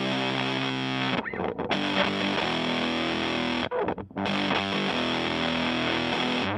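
Electric guitar, a PRS SE Custom, played through the handmade Power2 fuzz pedal into a Fender Blues Junior amp, sounding thickly fuzzed chords. It plays three held chords, each ringing for a couple of seconds, with brief breaks about a second in and near the middle.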